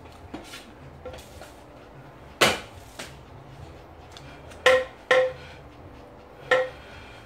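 Bamboo sticks striking, four sharp hollow knocks, each with a brief ringing tone; two of them come in quick succession near the middle.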